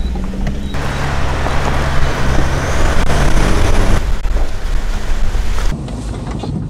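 Off-road 4x4's engine running steadily as it drives over a wet track, with a loud rushing hiss of tyres through water for about three seconds from near the start; near the end only the engine and road noise remain, duller.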